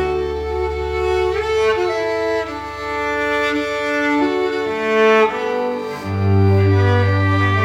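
Instrumental passage of bowed strings: violin and cello playing long held notes that change every second or so, with a deep low note coming in about six seconds in.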